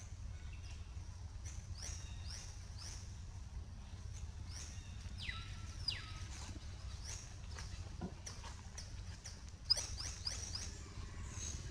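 Short, high-pitched animal chirps sliding downward in pitch, repeating about once or twice a second, over a low steady rumble.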